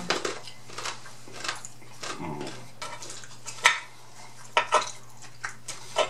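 A metal fork clinking and scraping against a plate of loaded fries, with chewing and mouth sounds between. The sharpest clinks come a little past halfway and again near the end.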